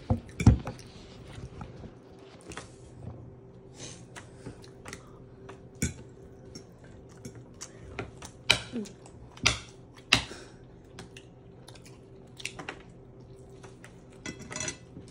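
Fork clinking and scraping on a plate while eating, with sharp clicks every second or two and the loudest knocks about half a second in and again around eight to ten seconds in. Quieter chewing and small table noises come in between, over a faint steady hum.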